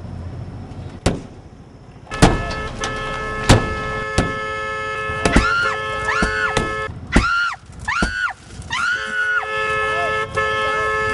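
Repeated hard blows against a car's side window fitted with anti-shatter film, about one a second, the glass cracking but held in place by the film. A car alarm wails over the blows from about two seconds in.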